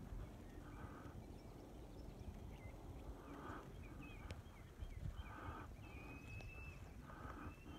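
Faint outdoor ambience: wind noise on the microphone, with a faint short animal call repeating about every two seconds and a few higher chirps.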